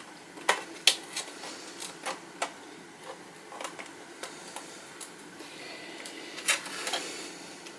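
Irregular light clicks and taps of a tin toy tank's side panel and thin metal tabs being worked by hand into the slots of the body, with the sharpest clicks about half a second and a second in and again near six and a half seconds.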